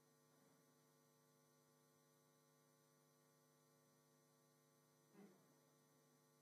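Near silence: a steady, faint electrical hum on the recording, with one brief faint sound about five seconds in.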